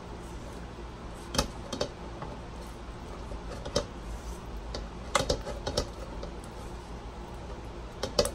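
A spoon clinking and scraping against a stainless steel bowl while stirring chocolate and butter melting over a pot of hot water. The light clinks come irregularly, a few at a time.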